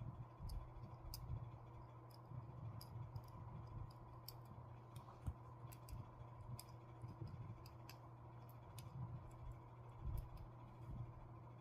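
Faint, irregular small clicks and ticks of tools and small plastic and metal phone parts being handled during smartphone reassembly, over a steady low hum.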